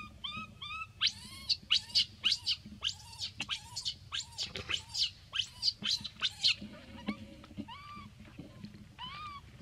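Baby macaque crying with a string of short, rising-then-falling squeaky coos, thick at the start and sparser after the middle. From about a second in to past the middle, a quick run of sharp crackles, about three a second, is louder than the calls.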